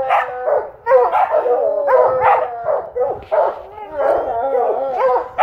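A pack of hunting dogs barking and baying at the foot of a tree, several voices overlapping in short barks and longer howling bawls. This is tree barking: the dogs are holding a mountain lion they have treed.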